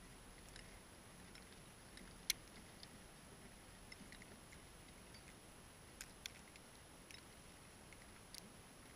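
Near silence with a few faint, scattered sharp clicks, the clearest one a little over two seconds in.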